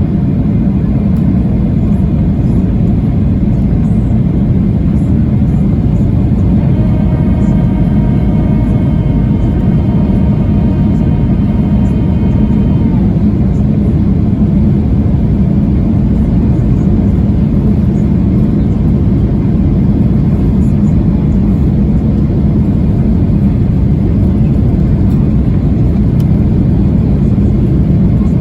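Boeing 737-800 cabin noise on final approach: steady loud rumble of engines and airflow. About seven seconds in, a steady pitched whine joins for about six seconds, then stops.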